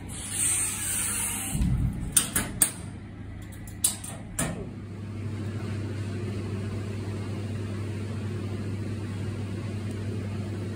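Screen drying cabinet's door being shut: a short hiss of air, a low knock and several sharp clicks as it closes and latches. After that, a steady low hum.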